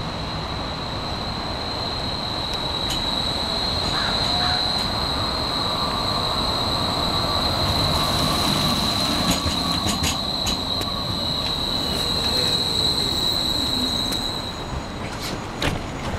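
Portland Streetcar #6 arriving at a stop: a steady high-pitched wheel squeal from the wheels on the rails over the car's low rumble. The squeal stops about a second before the end, followed by a few sharp clicks as the car comes to rest.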